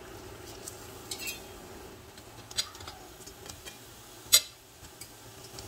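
Metal fork and spatula clinking against a stainless steel frying pan as banana pieces are added to hot oil and caramelizing sugar: a few scattered clinks, the loudest about four seconds in.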